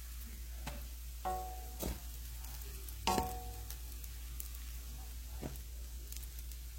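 A few soft clinks over a steady low hum, two of them, about a second in and about three seconds in, with a short ringing tone.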